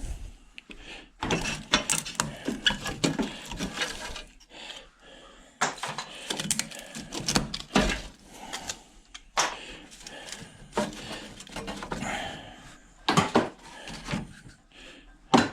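Irregular clicks, knocks and clatter of hand tools working on the metal parts and tubing of a hot beverage dispenser being taken apart, with sharper knocks about 13 seconds in and near the end.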